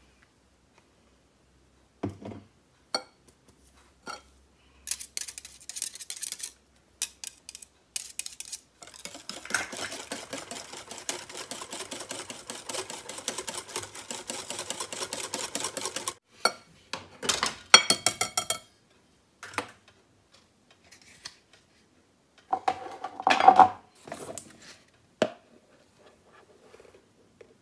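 A utensil clinking and knocking against a mixing bowl while batter ingredients are combined, with scattered taps and a stretch of fast, steady whisking about seven seconds long in the middle, then a louder clatter near the end.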